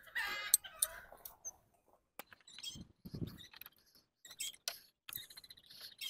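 A chicken clucks briefly at the start. Scattered clicks and taps of a wrench follow as a riding mower's battery terminals are undone and the battery is worked loose, with a dull thud about three seconds in.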